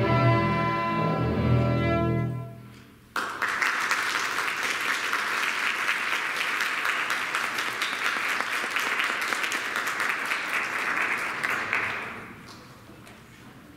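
A string ensemble of violins, cellos and double bass holds its final chord, which dies away about two and a half seconds in. After a short pause the audience starts applauding, a steady clapping that fades near the end.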